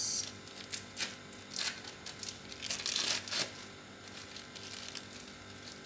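Plastic wrapper of a processed cheese slice crinkling as it is peeled off by hand, in a series of short rustles, the longest and loudest about three seconds in.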